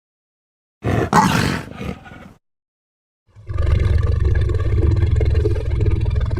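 Dinosaur roar sound effects for Wiehenvenator, a large meat-eating dinosaur: a short, sharp roar about a second in that fades away, then, after a pause, a long, deep, rumbling roar that ends in a trembling flutter.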